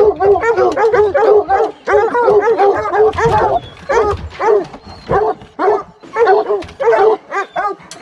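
Hunting hounds barking rapidly and excitedly, quick runs of barks broken by short pauses.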